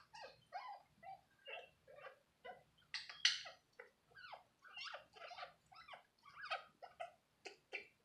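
Senegal parrot giving a steady string of short, soft calls, about three a second, some falling in pitch, while rubbing against its perch in breeding-season hormonal behaviour.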